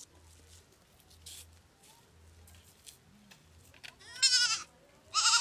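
Young goat (kid) bleating twice near the end, the first call wavering in pitch and the second shorter.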